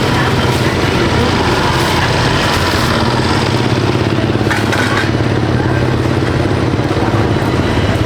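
A small engine running steadily at constant speed, with a coarse broadband noise over it.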